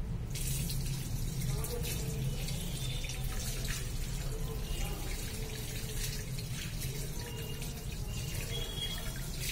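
Tap water running onto hands and into a washbasin as soap is rinsed off, a steady splashing hiss that starts a moment in.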